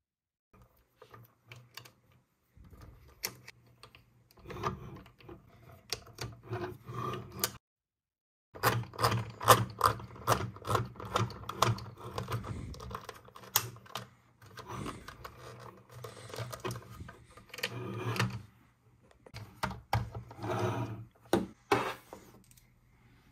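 Hard plastic parts of a Bluey fire truck toy being handled: rapid clicks, taps and rattles as the ladder, hose and small pieces are moved, pulled and snapped, and figures are set down on the table. The clicking stops dead for about a second partway through.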